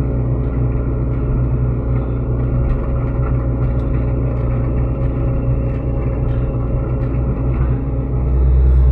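Sany SY75C excavator's diesel engine running steadily, with faint scattered clicks and knocks over it. Near the end the low engine note swells louder for about a second, as if under hydraulic load.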